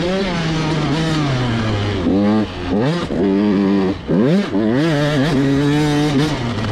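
Husqvarna TC 85's 85 cc single-cylinder two-stroke engine under riding load. The revs fall off at first, then it is revved hard with quick rises about two, three and four seconds in, each broken by a short drop as the throttle closes or a gear changes, and it settles into a steadier pull near the end.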